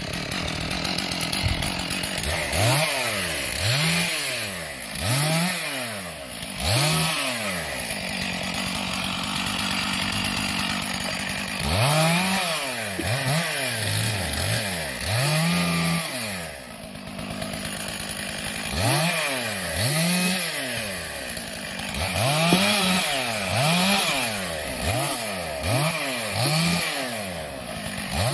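Chainsaw engine revving up and falling back about once a second in runs, with a steadier stretch between, as it cuts the branches off a felled tree.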